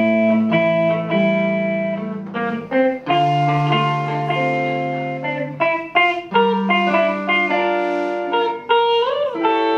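Electric guitars playing a slow, clean instrumental song intro: picked chords and single notes left to ring, with low bass notes underneath. One note is bent up and back down about nine seconds in.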